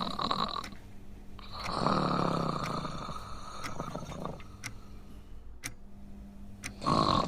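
A man snoring: a long snore about a second and a half in that trails off, a quieter spell, and the next snore starting near the end.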